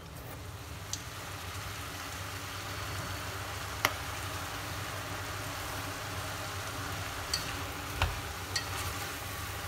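Chayote shoots and shrimp sizzling steadily as they stir-fry in a stainless steel pot. Several sharp clicks come from chopsticks knocking against the pot as the food is turned.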